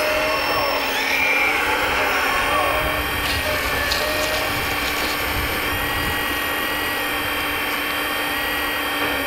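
Hydraulic pump of a Kabolite K350 RC excavator whining steadily as the boom and bucket dig gravel. Its pitch steps up and down as the functions change, with a few light ticks from the bucket.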